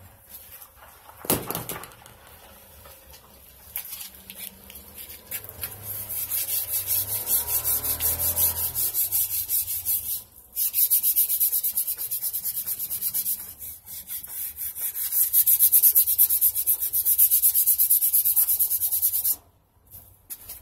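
Hand sanding the painted steel tubes of a mini bike frame in rapid repeated back-and-forth strokes. It pauses briefly midway and stops suddenly near the end, with a single knock about a second in.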